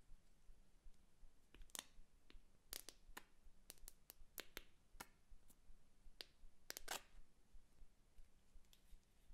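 Faint, sharp plastic clicks and ticks from glitter glue tubes being handled and squeezed, a dozen or so, bunched in the middle seconds.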